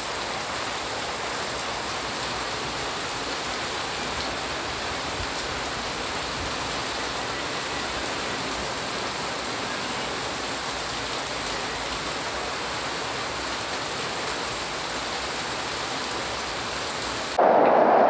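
Heavy rain pouring steadily, an even hiss. About a second before the end it cuts abruptly to a louder, deeper rushing downpour.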